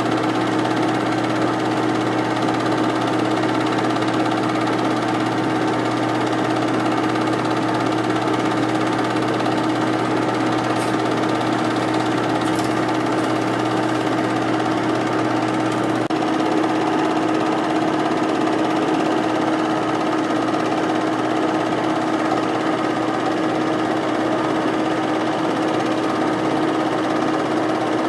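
8mm film projector running, a steady mechanical whir and clatter of the motor and film transport; a low hum drops out about halfway through.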